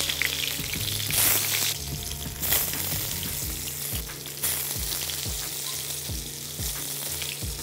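Boiled chitol fish dumplings (muitha) sizzling in hot mustard oil in a frying pan as they are added one by one. The sizzle flares up louder several times as more pieces go into the oil.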